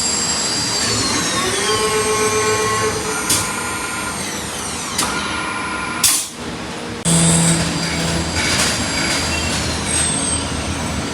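CNC turning lathe machining brass parts: a steady mechanical run with several whining tones that shift and glide down in pitch, scattered clicks, and a short loud hiss about six seconds in.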